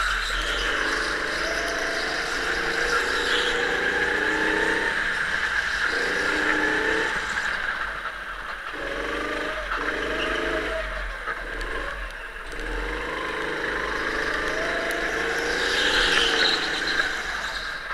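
Go-kart heard from on board while driving laps, its drive note rising and falling with speed through the corners, with brief drops in level about eight and twelve seconds in as it slows.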